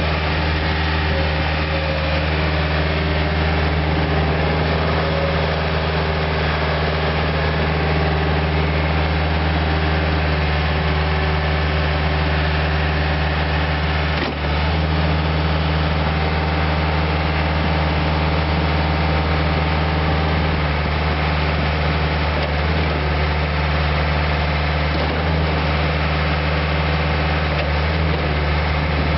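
Case 430 skid steer's diesel engine idling steadily, with one brief dip about halfway through.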